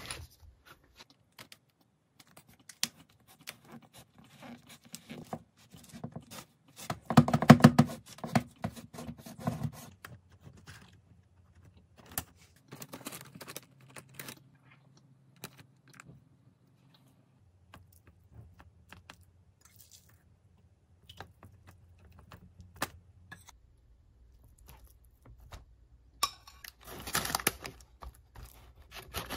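Small clicks, taps and rustles of food and utensils being handled while a bagel sandwich is assembled, with a louder stretch of rustling and clatter about seven seconds in and again near the end.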